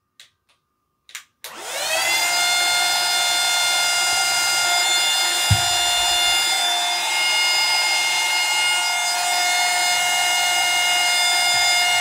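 Autoommo handheld cordless car vacuum: a couple of clicks, then about a second and a half in its motor spins up in a rising whine and runs steadily with a loud, high-pitched whine, reading about 78 dB. A single thump comes partway through.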